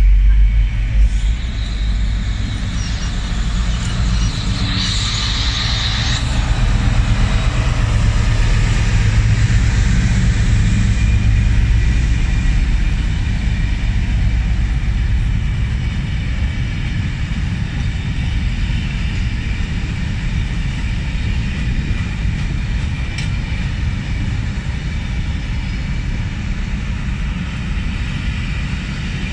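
A Class 60 diesel freight locomotive, with its Mirrlees eight-cylinder engine, passes with its low engine rumble, followed by the steady rumble of a long train of loaded open box wagons rolling over the rails. A brief high squeal comes about five seconds in.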